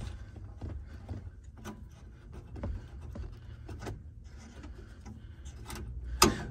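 Handling noise inside a vehicle cab: a steady low rumble with scattered light clicks and rubbing, and one sharp click about six seconds in.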